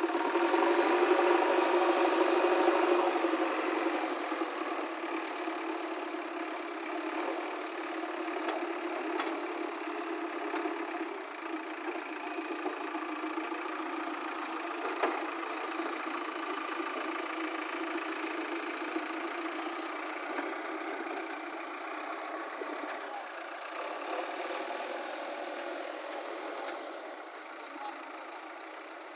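JCB backhoe loader's diesel engine running steadily, louder for the first few seconds and then settling at a level, easing off slightly near the end, with an occasional faint knock.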